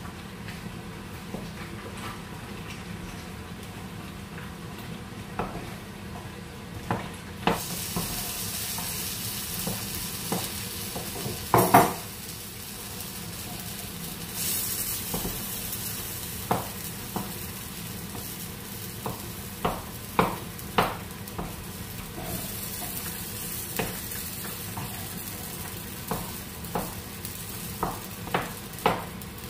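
Wooden spoon stirring and crushing yam porridge in a metal pot, with irregular knocks of the spoon against the pot, the loudest about twelve seconds in. A soft hiss from the cooking pot comes and goes.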